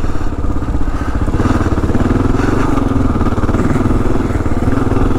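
2022 Kawasaki KLR 650's single-cylinder engine running under way through an aftermarket Lexx slip-on exhaust, its pitch wavering a little with the throttle as the bike is lugged through sand.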